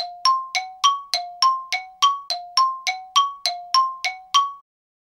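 A two-tone bell chime struck in alternation, low then high, about three strikes a second, sixteen strikes in all, each ringing briefly. It cuts off suddenly near the end.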